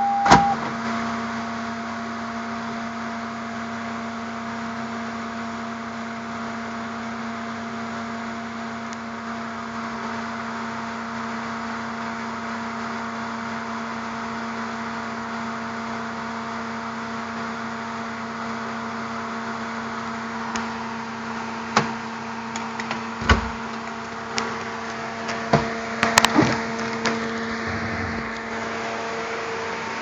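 Electric radiator cooling fan of a 1997 Toyota RAV4 running steadily with a whirring hum while the engine is off and cold; only the small fan switches on, not the large one, a fault the owner cured by cleaning both fans' connectors. Several sharp clicks and knocks in the last ten seconds.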